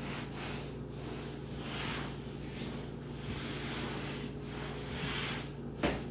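Cloth rubbing back and forth across a tabletop in repeated wiping strokes. There is a short knock near the end.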